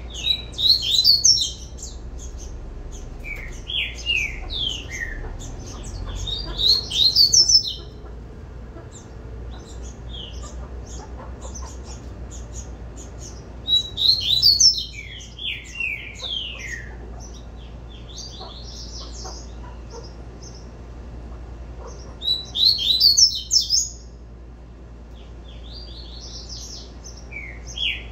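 Double-collared seedeater (coleiro) singing its "tui-tui" song: phrases of quick, high, down-slurred whistled notes, repeated every few seconds, with softer twittering between the phrases.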